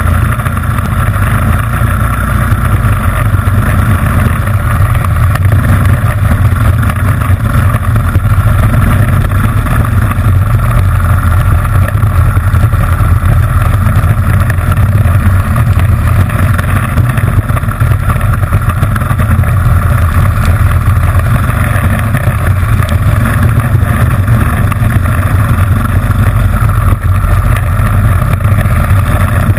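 Honda GX160 single-cylinder four-stroke kart engine running hard at racing speed, heard from on board the kart, with a loud, fairly steady engine note.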